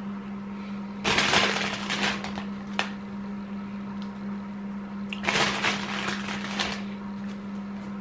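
Two bursts of crinkling, rustling packaging handled by hand, each lasting a second or more, with a steady low hum underneath.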